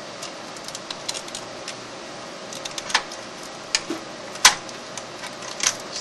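Scattered light clicks and taps as cables and plastic parts are pressed back into place inside an HP ProLiant DL380 G5 server chassis. The sharpest click comes about four and a half seconds in, over steady background noise.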